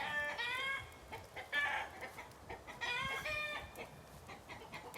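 Chickens calling nearby: three short, pitched, clucking calls about a second and a half apart.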